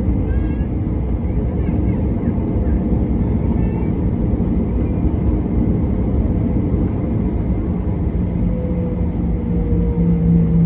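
Boeing 737-800 cabin noise while taxiing: the jet engines and rolling airframe make a loud, steady rumble. About eight seconds in, a steady low hum comes in and grows stronger, with a faint tone sliding down slightly above it.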